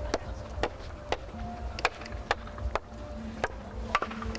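Sledgehammer blows against a stacked pile of wooden blocks: sharp wooden knocks at irregular intervals, about eight in all, as blocks are knocked out of the stack.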